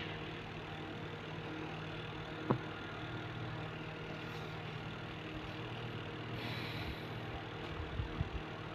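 Steady low mechanical hum, with a single sharp click about two and a half seconds in and a few soft low thumps near the end.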